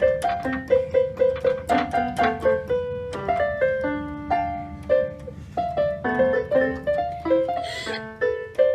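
Portable electronic keyboard played in a piano voice: a brisk melody of single notes and chords, several notes a second.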